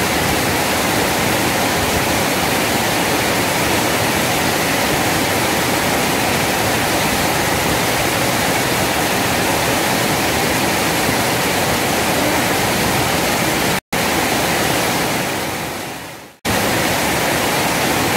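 Water pouring over a small weir and rushing through the shallow river below: a loud, steady rush. The rush breaks off for an instant about three quarters of the way in, then fades away to a moment's silence before returning.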